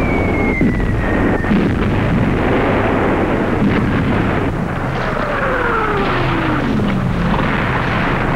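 Battle sound effects: explosions over a continuous rumble, with a falling whistle near the start and a second, lower one sliding down between about five and seven seconds in.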